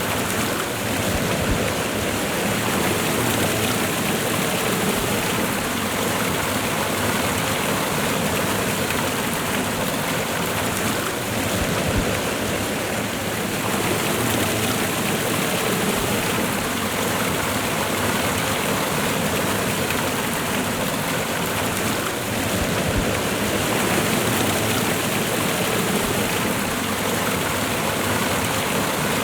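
Waterfall and river water rushing steadily, a dense even roar of falling and running water.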